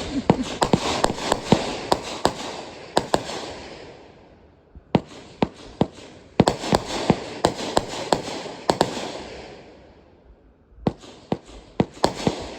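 Consumer fireworks going off: rapid sharp cracks and bangs over a crackling hiss, in three volleys, each dying away over a few seconds, the second starting about five seconds in and the third near the end.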